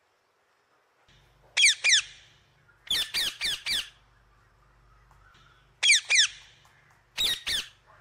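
Blue-and-gold macaw squawking: harsh calls that each drop in pitch, coming in short runs of two, then four in quick succession, then two and two more.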